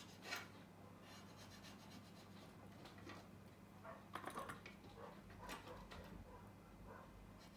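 Near silence with a faint steady electrical hum, broken by soft scratches and light taps of small hand tools working on a phone's metal housing: one near the start and a cluster about four to six seconds in.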